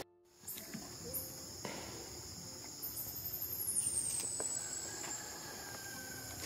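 Steady, high-pitched chorus of crickets or similar insects, with a few brief higher calls and a slow falling high note around the middle. The sound cuts out for a moment at the very start.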